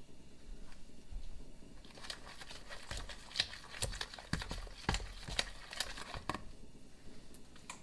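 A metal spoon stirring thick cream cheese and ranch dressing in a plastic mixing bowl: irregular clicks and knocks against the bowl with soft squelches, mostly in the middle few seconds.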